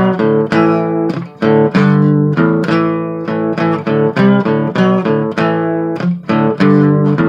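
Instrumental break in a song: guitar, most likely acoustic, strumming chords in a steady rhythm of about three strokes a second, with no vocals.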